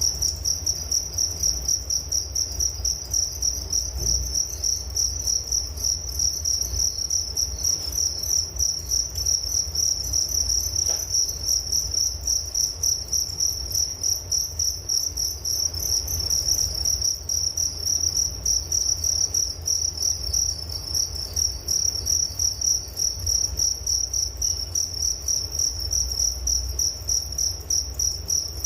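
Crickets chirping in a continuous high-pitched trill that pulses evenly, about three times a second.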